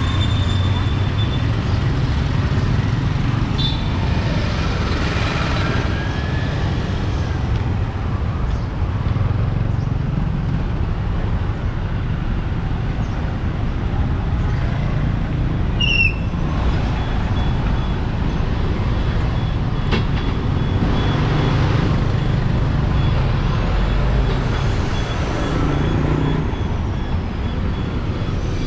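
Street traffic: a steady low rumble of passing motor vehicle engines, with a brief high chirp about halfway through.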